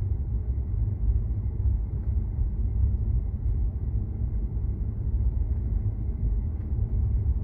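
Steady low rumble of road and tyre noise heard inside the cabin of a Tesla electric car while it drives, with no engine sound.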